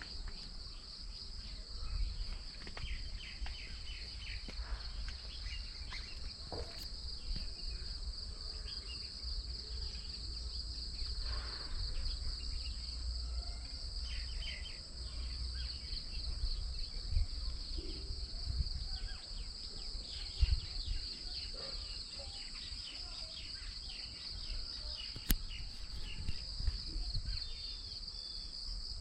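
A steady chorus of insects trilling in a high, continuous, finely pulsing band, over a low rumble.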